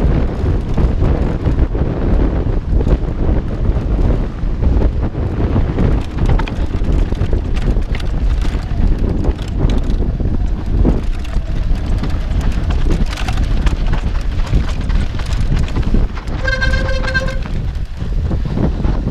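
Wind buffeting a GoPro's microphone on a mountain bike riding dirt singletrack, with the bike and tyres rattling and knocking over the rough trail. Near the end comes a single steady, high toot about a second long.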